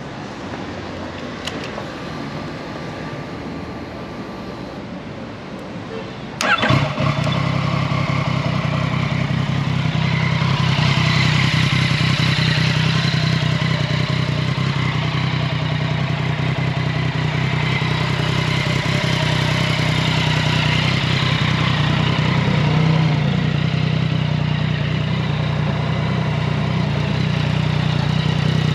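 Yamaha FJ-09's three-cylinder engine cranks on the starter and fires about six seconds in, then settles into a steady idle through a full Akrapovic exhaust.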